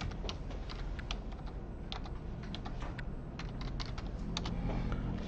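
Computer keyboard typing: a run of irregular key taps as a case number is entered.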